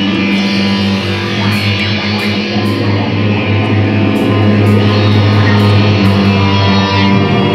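Live experimental band jam: electric guitar playing over a steady, held low bass tone, with short high ticks scattered through.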